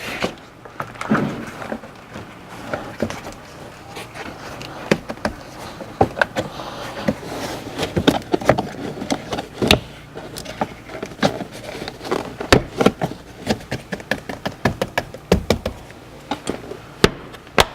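A rubber door seal being pressed back onto a car's door opening by hand: irregular taps, knocks and rubbing with scattered sharp clicks throughout.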